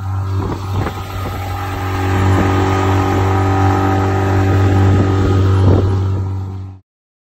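Tohatsu 9.8 hp outboard motor running steadily at speed, pushing a loaded inflatable boat. The sound cuts off abruptly near the end.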